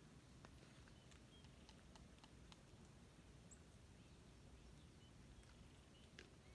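Near silence: faint outdoor background with a low steady rumble, scattered soft clicks and a few brief high chirps.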